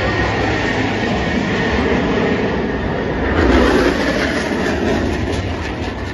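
Four U.S. Air Force Thunderbirds F-16 Fighting Falcons passing in close formation, their jet engines making a loud, steady roar. It swells about three and a half seconds in and starts to fade near the end.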